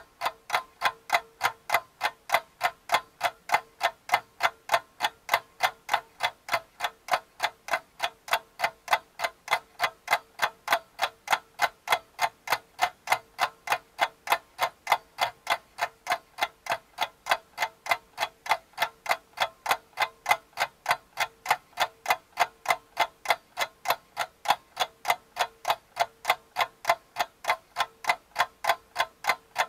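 Steady clock-like ticking, about three ticks a second, even and unbroken.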